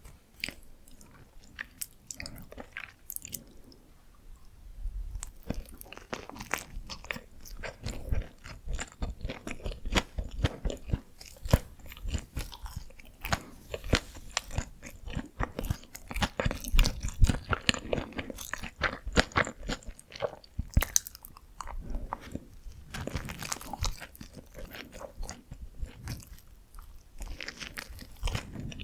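Close-up chewing and biting of Korean steamed buns (hoppang), heard as a dense run of quick mouth clicks and smacks. It is sparse for the first few seconds, then thick and steady.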